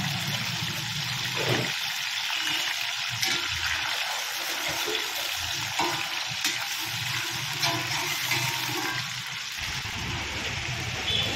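Chicken pieces deep-frying in a kadai of hot oil: a steady, dense sizzle, with a few short knocks of a metal spoon as the pieces are stirred.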